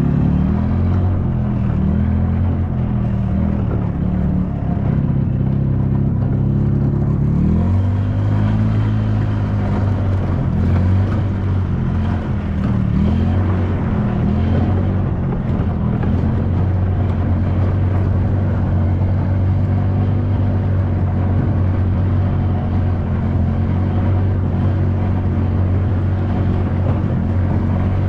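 Farm maintenance cart's engine running steadily as the cart is driven along, its pitch wavering with speed and shifting about seven seconds in.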